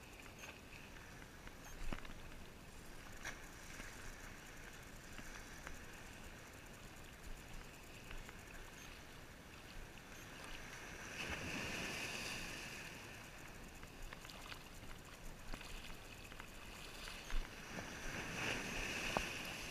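Faint lapping and sloshing of shallow seawater, swelling twice (around the middle and near the end), with a few small scattered clicks.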